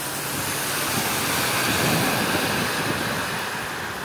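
Vehicles driving past on a flooded, rain-wet road: a hiss of tyres through water swells to a peak about halfway and fades away.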